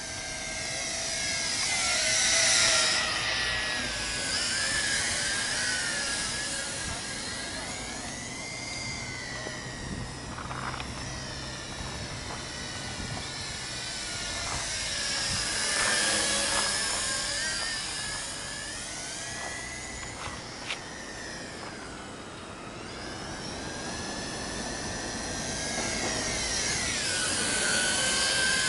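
Tarantula X6 hexacopter drone's electric motors and propellers whining in flight, the pitch wavering up and down with the throttle. It grows louder and fainter as it passes overhead, swelling three times.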